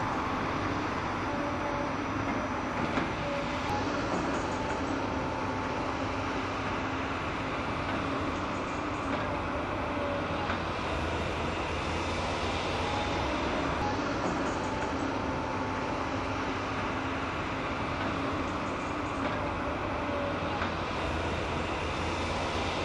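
Excavator digging a drainage trench: a steady diesel engine drone, with short hydraulic whines several times.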